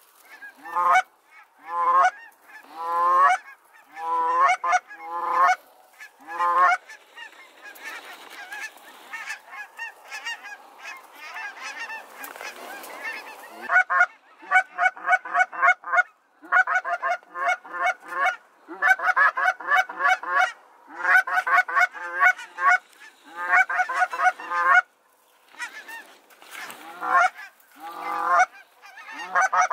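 Flocks of geese honking overhead: separate calls at first, then a dense clamour of many birds calling at once from about seven seconds in, then fast strings of honks from about fourteen seconds on.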